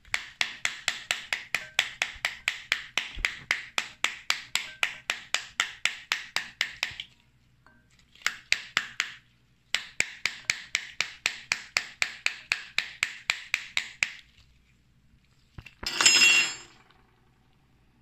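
A kitchen utensil clinking against a container in quick regular strokes, about four a second, in three runs with short pauses between them. Near the end comes one brief, louder ringing clatter.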